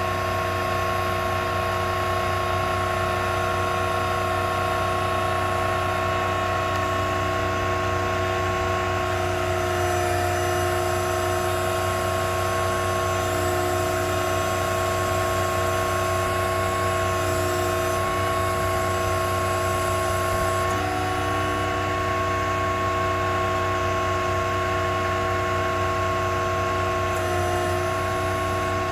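Truck-mounted Auto Crane in operation: a steady mechanical hum and whine that shifts slightly in pitch a few times.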